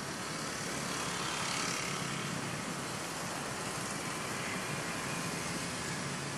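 Steady background hum of distant engine traffic, swelling slightly about a second and a half in.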